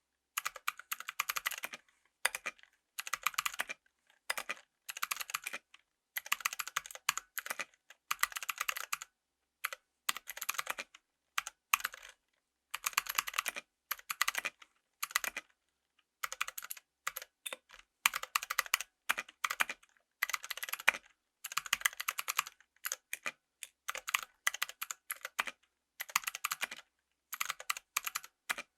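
Mechanical keyboard with Kailh Pro Light Green click-jacket switches being typed on. Rapid runs of sharp clicks come in bursts about a second long, with short pauses between them.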